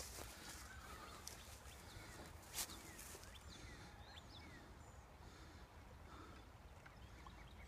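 Near silence with faint birdsong: scattered short chirps, and one sharp click about two and a half seconds in.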